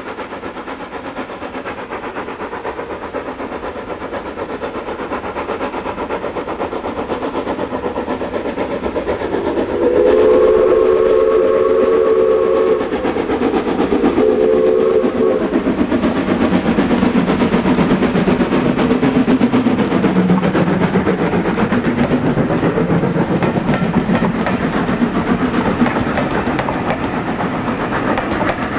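Steam tank locomotive No. 29, an 0-6-2T, hauling a train towards and past, its exhaust beats growing steadily louder as it nears. It sounds a chord-like whistle twice, a long blast about ten seconds in and then a shorter one. The engine and then the carriages rumble past.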